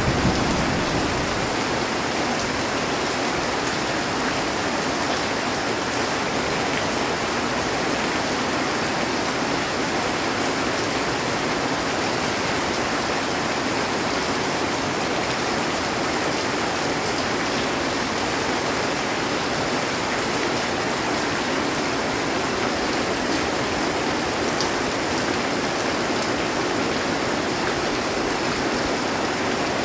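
Heavy rain falling steadily on a metal roof, a dense, even hiss. The tail of a low thunder rumble dies away in the first second.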